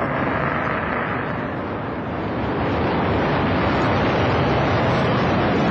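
Delta II rocket lifting off, its first-stage main engine and six ground-lit solid rocket motors burning: a steady, dense exhaust noise that swells slightly after about two seconds.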